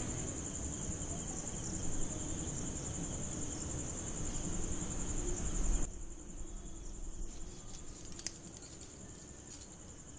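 Night ambience of a steady, high cricket trill, over a low even noise that drops away abruptly about six seconds in. A few faint clicks follow near the end.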